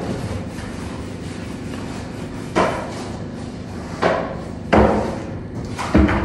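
Four separate knocks or bangs, the first about two and a half seconds in and the rest coming roughly a second apart, over a low steady hum.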